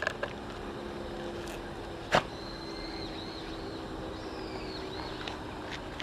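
One short, sharp sneeze about two seconds in, over a steady low background.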